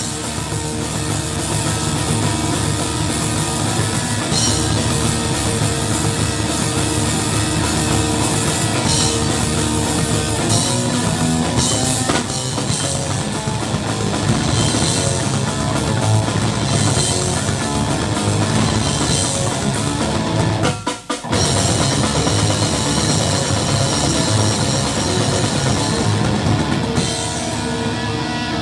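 Punk rock band playing with guitars and a full drum kit. The music drops out for a split second about two-thirds of the way through, then carries on.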